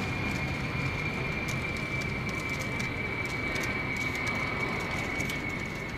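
Steady rushing background noise of an old outdoor recording, with a constant thin high whine and scattered faint clicks; no clear single event stands out.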